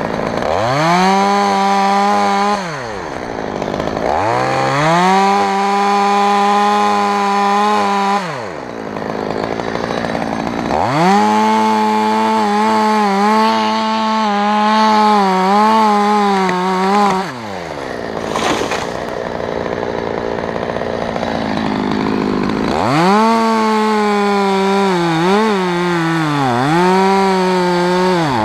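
Stihl chainsaw revved to full throttle in four bursts of a few seconds each, its pitch rising sharply at each and dropping back to idle in between. In the last burst the pitch dips again and again as the chain bogs down cutting into the oak trunk.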